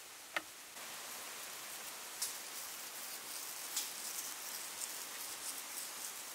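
A steady hiss with scattered light pattering ticks, like rain on a surface, and a single sharp click about half a second in. The hiss gets a little louder shortly after the click.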